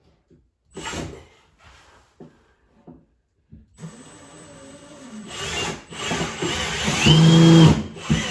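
A few short knocks, then a cordless drill driving a screw through the cabinet into a wall stud: the motor runs up, its pitch shifting as it works through the wood, and is loudest under load near the end.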